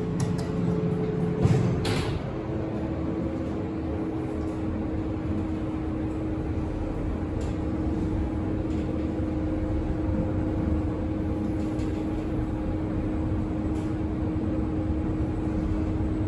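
Delta elevator car travelling upward: a steady low rumble and hum from the ride, with one steady tone through it. A knock comes about one and a half seconds in, and the tone drops in pitch just after it.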